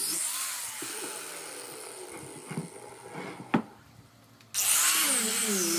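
Angle grinder with a sanding disc sanding a wooden panel: a high motor whine that wavers in pitch as the disc is pressed into the wood. It dies down midway, a sharp click sounds about three and a half seconds in, then the whine comes back in abruptly and loud near the end.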